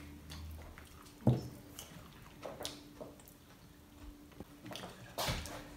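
A person eating pizza up close: chewing and biting, with small wet mouth clicks and smacks. A single sharp knock about a second in is the loudest sound, and there is a short noisy rush near the end.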